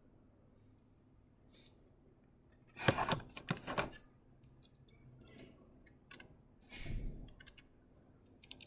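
Several sharp clicks and knocks, bunched together about three seconds in and again near seven seconds, with a short high beep around four seconds in.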